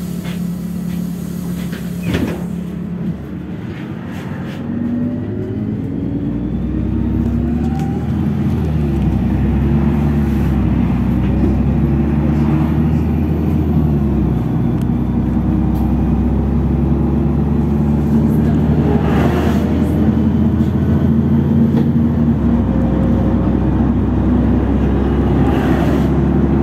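Inside a LiAZ 6213.65 articulated city bus under way: diesel engine and road noise. A few seconds in, the engine note climbs and grows louder as the bus picks up speed, then runs steadily at cruising speed.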